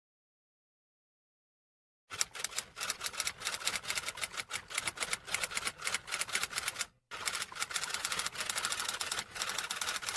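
Silence, then about two seconds in a fast, even run of typing clicks, many keystrokes a second. There is one brief break near the two-thirds mark.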